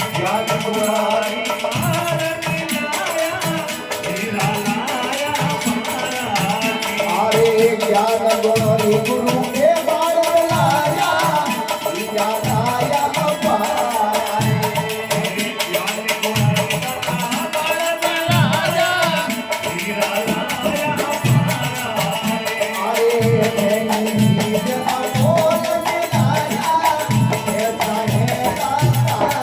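Rajasthani folk devotional bhajan: a voice singing a wavering melody over a steady hand-drum beat and jingling percussion.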